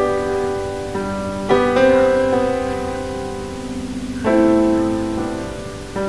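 Background piano music: slow sustained chords, a new chord struck every couple of seconds and left to ring and fade.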